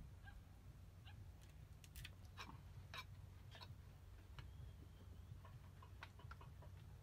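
Faint knife taps on a wooden cutting board as a bundle of long green herb stalks is chopped: scattered light ticks at first, then a quicker run of small ticks near the end.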